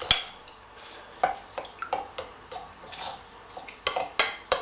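Table knife clinking and scraping against a glass mixing bowl in irregular taps as it cuts water into crumbly shortcrust pastry mix.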